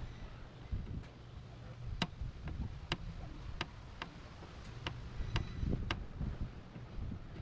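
A series of light, sharp clicks or taps, about six at uneven spacing, over low handling and rustling noise, from metal dent repair tools being handled and set against the car.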